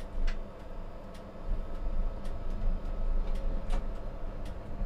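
Inside the cab of a Vario LF2+ tram: the steady hum of the tram's electrical equipment over a low rumble that grows stronger about a second and a half in, with a few scattered clicks.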